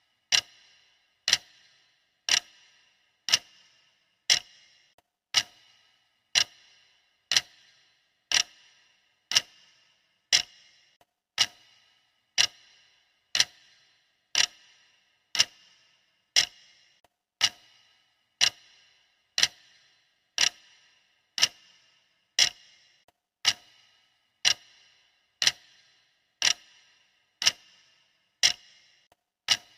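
Clock ticking, one sharp tick about every second in a steady, even rhythm.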